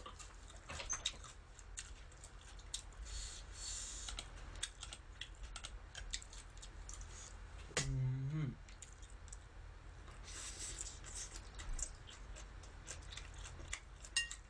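Metal chopsticks clicking and scraping against a stainless-steel bowl and a plate, tossing spinach salad, in many scattered light clicks with stretches of rustling. A short hummed vocal sound comes about eight seconds in.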